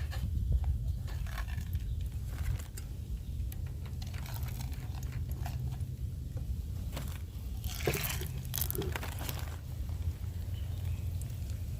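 Japanese dumplings frying in a pan over the camp fire: scattered crackles and pops over a steady low rumble, with a louder hissing burst about eight seconds in.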